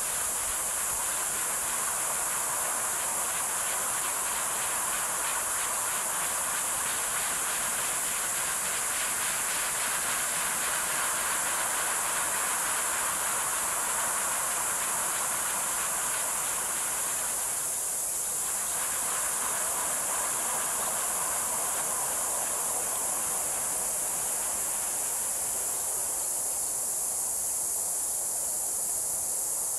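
Small 3 kW three-blade wind turbine spinning in the wind: a steady whooshing hiss that weakens over the last several seconds, under a constant high hiss.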